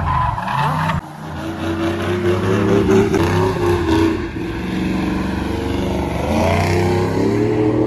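Pickup truck engine revving hard as the truck spins donuts with its rear tyres spinning, the engine note rising and falling repeatedly. The sound breaks off sharply about a second in and picks up again.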